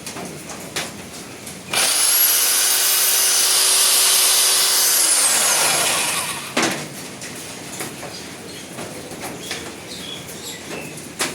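INGCO RH150038 1500 W rotary hammer switched on and running at a steady high whine for about four seconds, then let go and winding down with falling pitch. Handling clicks and knocks follow.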